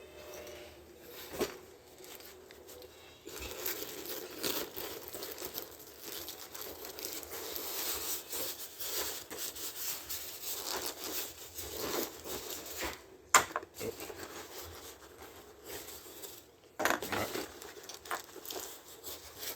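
Parcel wrapping being crinkled and torn open by hand, a dense crackly rustle through most of the stretch, with a few sharp clicks, the loudest about 13 seconds in.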